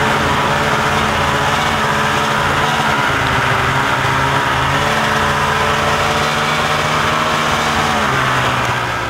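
Polaris snowmobile engine running steadily while the sled travels over snow, its pitch shifting a little a few times as the throttle changes.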